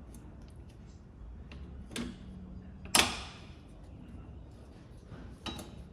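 Small metallic clicks and knocks of hand tools working on drum brake hardware, with one loud sharp metal clank about three seconds in that rings briefly, and a lighter knock near the end.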